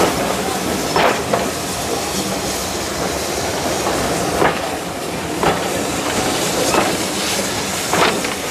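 Railway passenger coaches rolling slowly past with a steady rumble of wheels on track. A handful of sharp, unevenly spaced clicks sound as the wheels cross rail joints.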